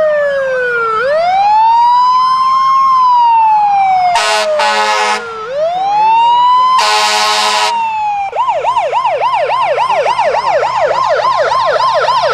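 Fire engine siren wailing in slow rises and falls, broken by two air horn blasts near the middle, then switching to a fast yelp of about three or four sweeps a second.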